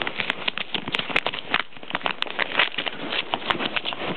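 Crinkling and crackling of mail packaging being torn and handled as it is opened, many small irregular crackles.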